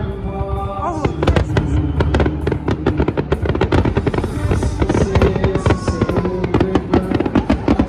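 Dense barrage of aerial fireworks shells bursting, with rapid bangs several times a second, over music.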